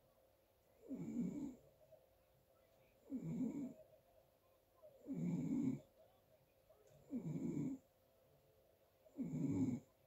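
A sleeper snoring in a slow, regular rhythm: five snores about two seconds apart, each lasting under a second, with quiet breathing between them.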